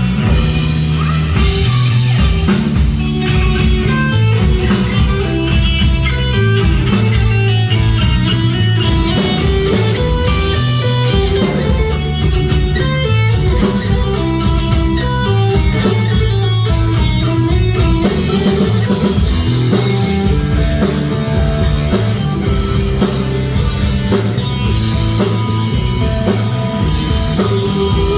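Heavy metal music: electric guitars over bass and a drum kit, played loud and steady, the drum hits thinning out about two-thirds of the way through.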